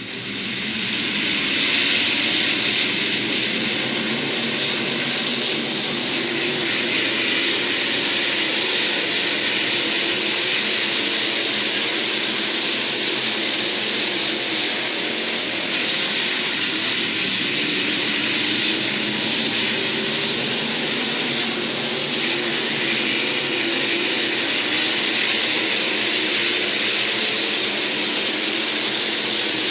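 A field of IMCA SportMod race cars' V8 engines running together at racing speed, a steady, continuous drone.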